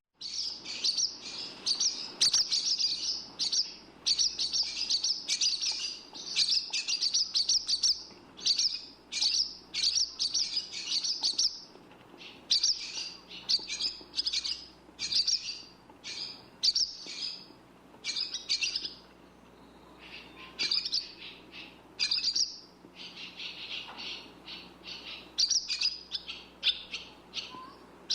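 Barn swallow twittering song: rapid runs of short, high chirps and chatter in bursts of a second or two, with a brief lull about two-thirds of the way through.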